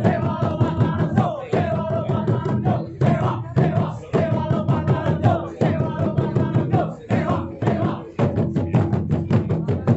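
Rampak gendang ensemble of many Sundanese kendang drums beaten together in fast, tight rhythmic phrases, broken by short breaks, with a held melody over the drumming.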